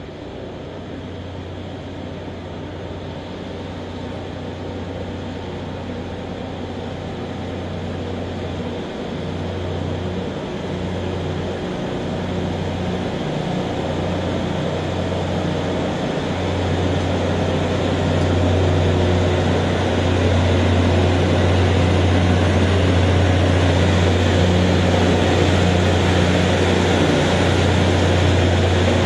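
Loram rail grinder train running past: a steady low engine drone under the broad hiss of its grinding stones working the rail. It grows steadily louder as the machine approaches, then holds loud from about two-thirds of the way in.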